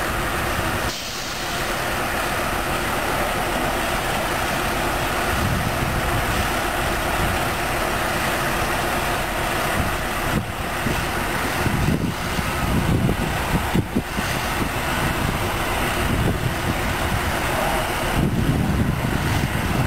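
Heavy diesel equipment engines running steadily at a low pace, their low end swelling louder a few times.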